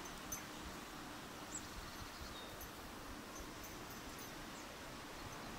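Faint outdoor ambience: a steady hiss of wind with low rumbling buffets on the microphone, and a few faint high ticks.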